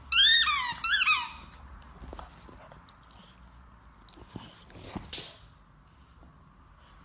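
Red rubber squeaky toy bitten by a pug, squeaking twice in the first second and a half, each squeak rising and then falling in pitch.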